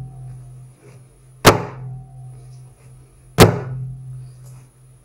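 Sticky bread dough slapped down hard onto a wooden board twice, about two seconds apart, each a sharp thud. This is slap-and-fold kneading, done to develop the dough's gluten.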